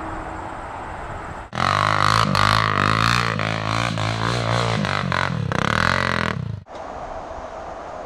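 Quad (ATV) engine running under throttle, its pitch wavering up and down. It comes in abruptly about a second and a half in and cuts off suddenly near the end. A quieter steady hum lies before and after it.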